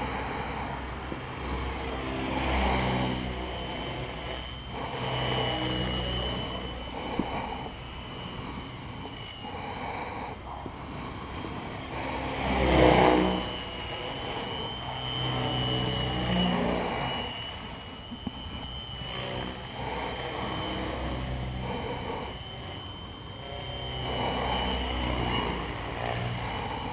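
Small electric RC helicopter, a belt-drive-modified Funcopter, in flight: a steady high whine from the drive with rotor blade noise that swells and fades as it flies nearer and farther, loudest about halfway through.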